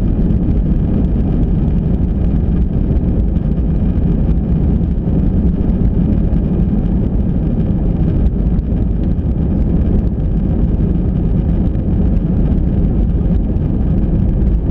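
Steady, loud rumble of jet engines and rushing air inside a jet airliner's cabin, heard from a window seat over the wing as the plane travels fast along the runway.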